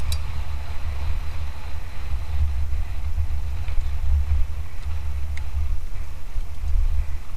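Steady low wind rumble buffeting the microphone as a mountain bike descends, with a few faint clicks and rattles from the bike.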